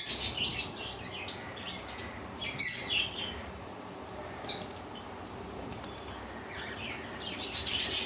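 Cockatiels chirping in short bursts: a few chirps at the start, a loud burst a little under three seconds in, and another cluster of chirps near the end.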